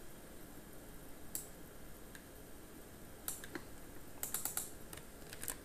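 Computer keyboard keystrokes, light and scattered, with a quick run of several keys about four seconds in.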